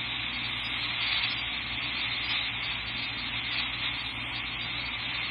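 Steady hiss with a low hum underneath from a dispatch radio feed, open between transmissions.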